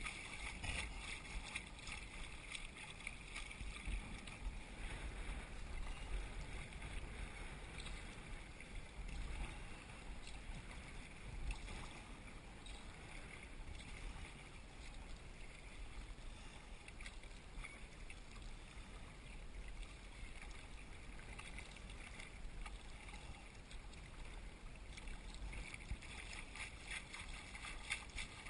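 Small waves lapping and splashing against a kayak's hull as it is paddled across choppy water, with paddle blades dipping in. A low wind rumble on the microphone comes and goes underneath.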